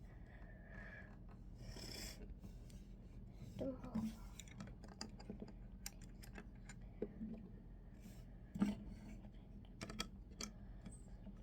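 Plastic Lego pieces being handled and set in place: scattered light clicks and rubbing, with a louder knock about four seconds in and another near nine seconds.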